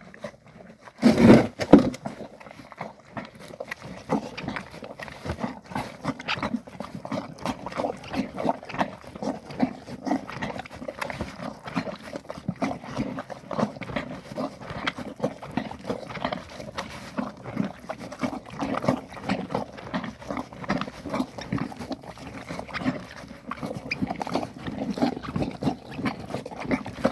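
Horse chewing feed from a bucket, each rhythmic chew giving a squeak that sounds like rubber squeaking, a noise found above all in old horses. A louder bump about a second in.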